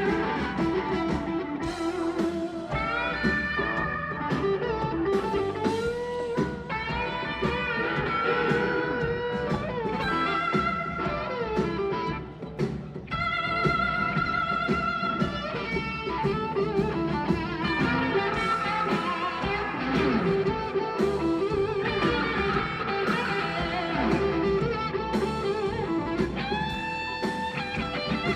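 Live blues-rock band playing, with electric guitar lines over bass and drums. The guitar notes bend in pitch, and the music drops away briefly about twelve seconds in before picking up again.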